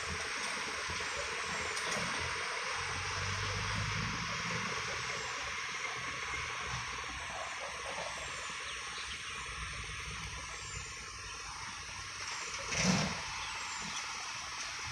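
A light truck's engine hums as it pulls around the hairpin and fades away, over a steady outdoor hiss. A short, sudden loud noise comes about 13 seconds in.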